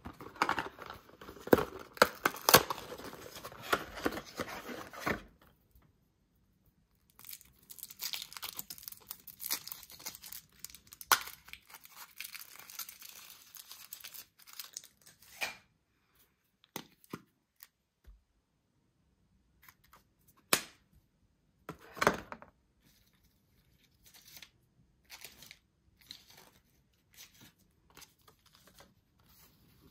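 Foil wrappers of Kinder Surprise chocolate eggs being torn open and crinkled, in two long stretches of dense crackling. After that come scattered single clicks and snaps.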